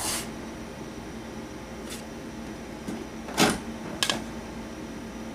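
A few short knocks and clicks of objects being handled, the loudest a little past halfway, over a steady low hum.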